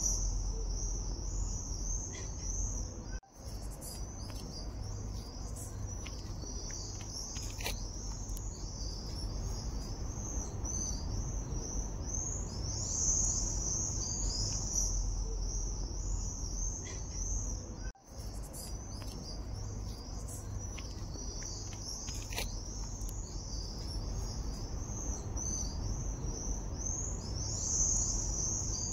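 Insects chirring in a steady high-pitched chorus that swells and fades, over a low background rumble. The sound cuts out briefly twice.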